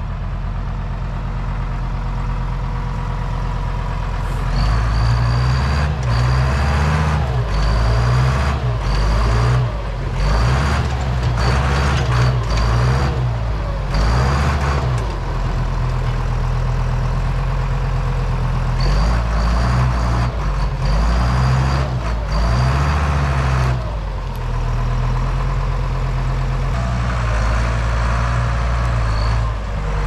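Deutz DX 90 tractor's air-cooled diesel engine working hard, surging under load in repeated pulses about once a second, each with a short high squeak. Between two such stretches it runs steadier.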